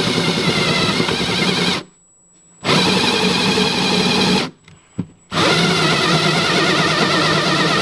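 Power drill spinning an adjustable-blade circle cutter (drywall hole cutter) through the plastic and foam wall of an ice chest. It runs in three spells, stopping just under two seconds in and again briefly past the four-second mark.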